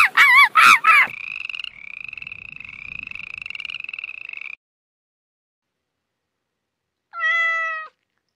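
A run of animal calls: about a second of quick repeated calls, then a buzzing trill that lasts a few seconds, and after a pause one short call near the end.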